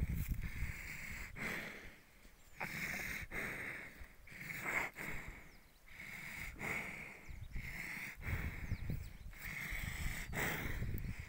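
Water buffalo breathing and snorting through its nose close by, a breath about every second.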